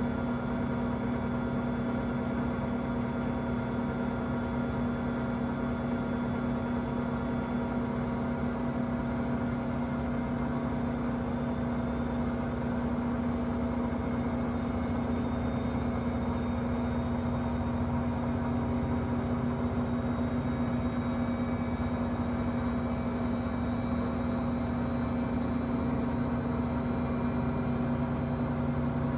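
Samsung front-load washer (WW25B6900AW) giving a steady, loud buzzing hum with a strong low tone and several higher tones over it, growing a little stronger near the end. The owner hears this louder buzz when the washer drains with no water left to drain; with water in the drum it drops to a quieter hum.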